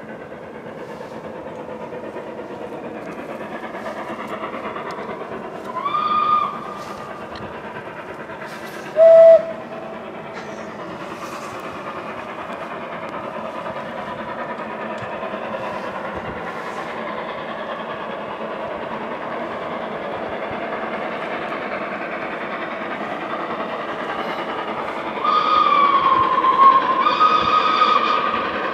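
Steam locomotive whistles: a short whistle about six seconds in, a brief, loud, lower-pitched blast a few seconds later, and a long whistle near the end that dips in pitch and rises again. Under them runs the steady sound of a working steam train, growing slowly louder as it approaches.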